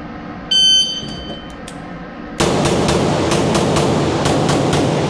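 A shot timer's short electronic start beep, then about two seconds in a rapid string of pistol shots from a Taran Tactical JW4 Pit Viper 2011, roughly four to five shots a second, each with a ringing tail.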